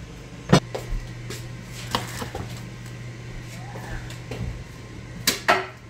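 A few sharp knocks and clatters of kitchen things being handled and set down on a counter, over a steady low hum. The loudest knock comes about half a second in, and two more come close together just after five seconds.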